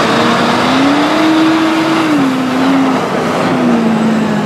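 John Deere tractor's diesel engine working under load as the tractor pulls through deep, loose dirt. The engine note climbs over the first second or so, holds, then sinks slowly toward the end.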